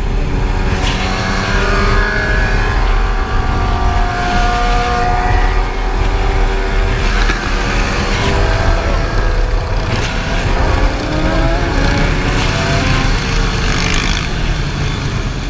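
A pack of sport motorcycles running at freeway speed, their engine notes rising and falling as riders rev and change speed, over a constant low wind rumble on the helmet microphone.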